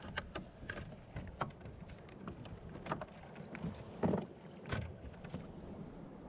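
Scattered small clicks and knocks of gear being handled aboard a fishing kayak, over steady wind and water noise, with a louder knock about four seconds in and another shortly after.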